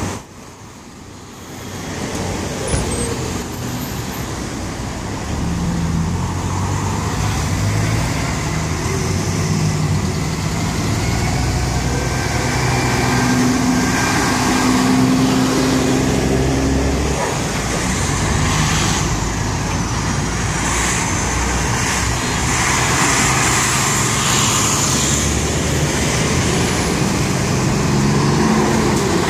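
Heavy diesel trucks, among them a Kenworth bonneted tractor unit, driving slowly past one after another. Passing cars mix in, making a steady engine and traffic drone.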